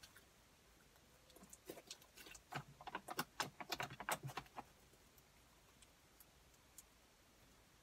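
Slime being squeezed and kneaded by hand, giving a run of small wet clicks and pops from about a second and a half in to about four and a half seconds, then stopping.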